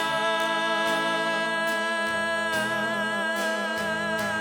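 Sertanejo song ending on a long, sustained sung note with vibrato over the band's accompaniment, its final word "voltar" held out.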